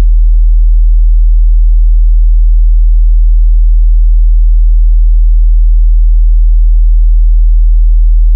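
A very deep, steady sine test tone, played loud through the speakers: the rattle test signal of an audio setup disc, used to find objects in the room that buzz or rattle with low-frequency vibration.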